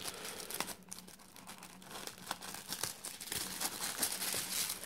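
Tissue paper crinkling and rustling as a hand peels it back from over the contents of a cardboard box, in irregular small crackles.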